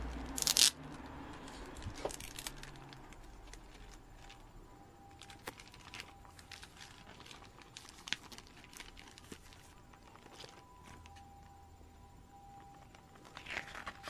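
Plastic packaging being handled: a short loud rip about half a second in, then light crinkling, rustling and small plastic clicks, with another burst of rustling near the end.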